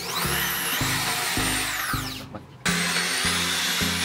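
Electric drill with a small abrasive grinding stone running against a steel hammer head, its whine rising and falling. The grinding fades out a little after two seconds and comes back suddenly. Background music plays throughout.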